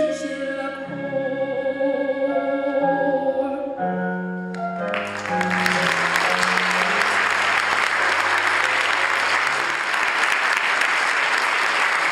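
The last held notes of a young girl's solo song and its accompaniment fade out over the first four seconds or so, then an audience breaks into steady applause about five seconds in.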